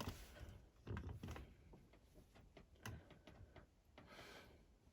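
Near silence broken by a few faint clicks and knocks from handling the smoke alarm, about a second in and again near three seconds, and a short soft hiss near the end. The alarm itself stays silent.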